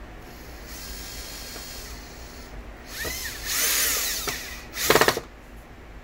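Power drill driving screws into a vacuum cleaner's bottom plate in three short runs, its motor whine rising and falling in pitch as the trigger is worked. The last run, near the end, is the loudest.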